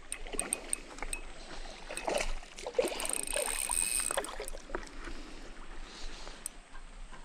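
Water splashing and sloshing, with scattered small knocks and clicks.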